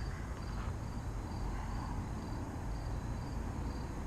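Crickets chirping steadily, about two chirps a second, over a low rumble of wind on the microphone.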